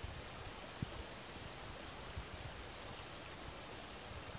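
Outdoor wind: a steady rushing hiss with a few low buffets on the microphone, the strongest about a second in.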